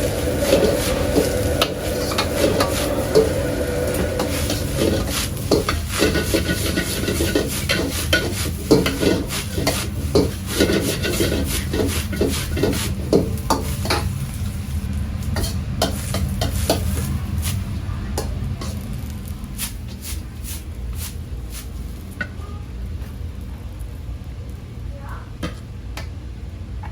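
Metal spatula clattering and scraping as fried rice is stirred and tossed on a hot pan, with sizzling underneath. The strokes come thick and fast at first, then thin out and grow quieter after about 17 seconds.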